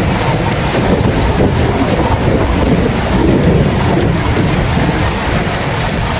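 Steady rain with a continuous low rumble of thunder.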